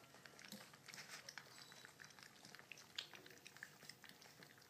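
Litter of young Labrador puppies eating softened kibble from a stainless steel feeding pan: faint, rapid, irregular smacking and chewing clicks.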